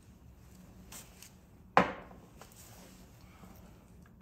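A single sharp knock about two seconds in, with a few faint clicks around it: hand tools and parts being handled at a workbench vise.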